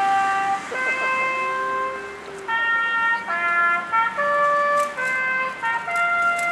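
A trumpet melody of held notes, each note changing pitch after about half a second to a second.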